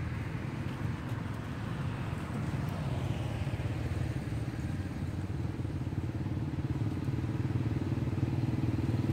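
Motorcycle engine running steadily, getting a little louder near the end.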